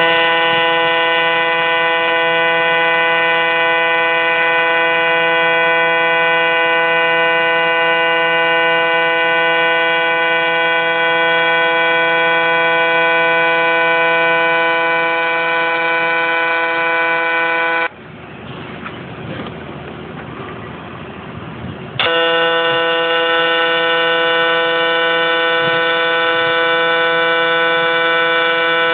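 AC TIG welding arc on aluminium, a loud steady buzzing hum. It cuts out about 18 seconds in and strikes up again about four seconds later.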